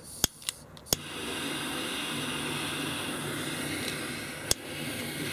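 Handheld butane torch being lit: a few sharp clicks in the first second, then the flame hisses steadily. One more click comes about four and a half seconds in.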